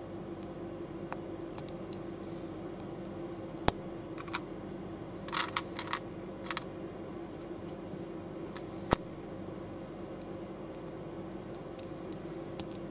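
Small plastic building bricks clicking as they are handled and pressed together, with scattered light clicks and two sharper snaps about four and nine seconds in. A steady hum runs underneath.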